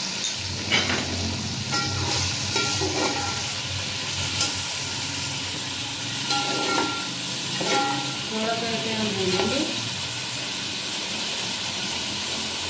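Potatoes, tomatoes and spices sizzling in hot oil in a metal pot, with a slotted metal spoon stirring, scraping and clinking against the pot's sides and bottom.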